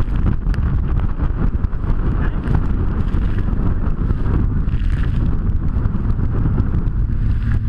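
Heavy wind buffeting the microphone of a jet ski rider at speed, with the watercraft's engine running steadily underneath.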